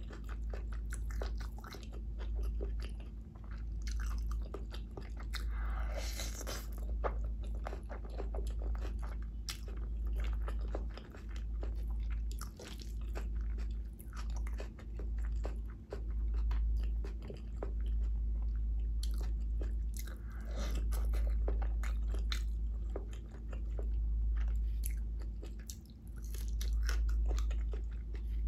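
Close-miked chewing and biting of a mouthful of vegetable biryani: a steady run of wet mouth clicks and soft crunches, over a strong, steady low hum.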